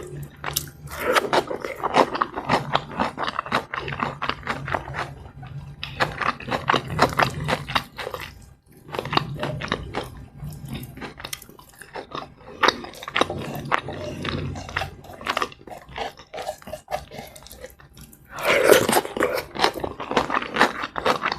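Close-miked mouth sounds of someone eating: wet chewing with many sharp, irregular clicks and crunches. Louder spells of crunching come about a second in, around six seconds, around twelve seconds and near the end.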